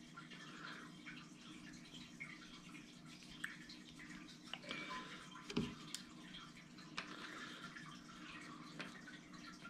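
Faint handling sounds of elastic cord being tied onto a carabiner clip: scattered light clicks and ticks, with one soft knock about halfway through.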